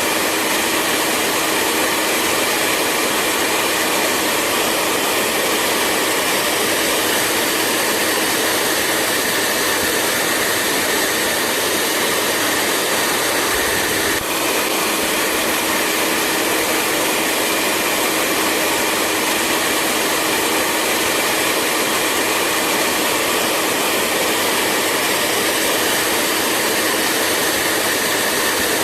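Hair dryer running steadily: a constant rush of air over a steady motor hum, with one momentary dip about halfway through.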